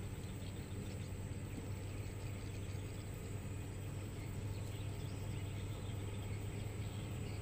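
Caterpillar 120H motor grader's diesel engine running steadily as it grades the dirt road, a low even drone. Faint bird chirps sound above it.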